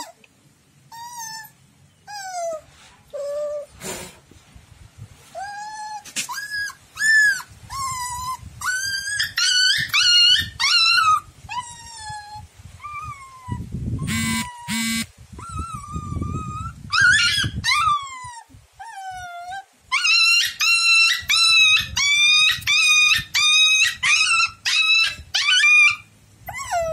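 Puppy whining and yelping in a long series of high cries that bend up and down, in distress at being soaped during a bath, coming thickest near the end. A few seconds of low rumbling noise sound about halfway through.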